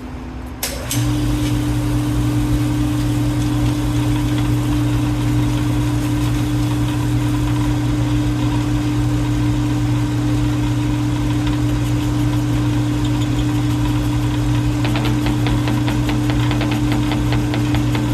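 Metal lathe with a 1-horsepower motor on 110 volts, switched on with a click about a second in and then running with a steady hum. About 15 s in a fine, rapid rattle joins the hum.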